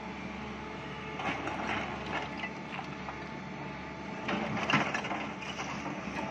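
SANY 350 crawler excavator's engine running steadily while broken stone clatters and scrapes against its bucket. The clatter comes in irregular spells about a second in and again around four to five seconds in, loudest near five seconds.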